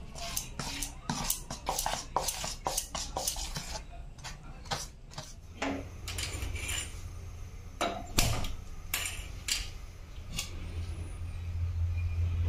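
A metal spoon stirring thick batter in a stainless steel bowl, a fast run of clinks and scrapes against the bowl. In the second half a few sharp clicks from a spark gas lighter at a stove burner, over a steady low hum that grows louder near the end.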